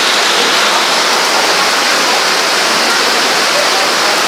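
Heavy rain pouring down and splashing on wet ground, a loud, steady rushing hiss.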